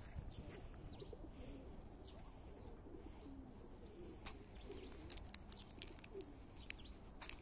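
Feral pigeons cooing softly, with faint high chirps from small birds over a low steady rumble. A quick cluster of sharp clicks comes about five seconds in.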